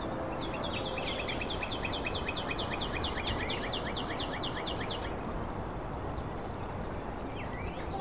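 A small bird singing one fast trill of high, down-slurred notes, about seven or eight a second, lasting about five seconds, over steady background noise.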